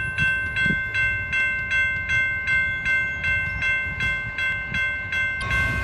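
Railroad grade-crossing bell ringing in rapid, even strokes, about three a second, warning of an approaching train while the gates are down; the ringing stops abruptly near the end.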